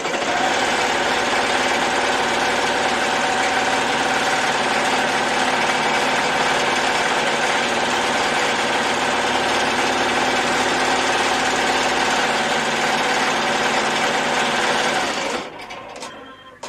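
Melco multi-needle commercial embroidery machine stitching at speed with a steady, rapid mechanical chatter, running on its newly installed motherboard. It stops about fifteen seconds in.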